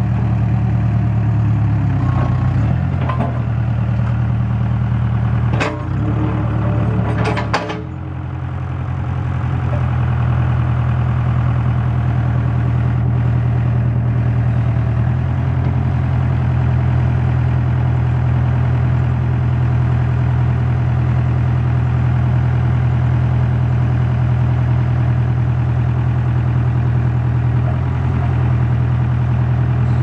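Case 580 Super K backhoe's Case 4-390 four-cylinder diesel engine running steadily at idle. A few sharp knocks come about six to eight seconds in, with a brief dip in the engine sound just after.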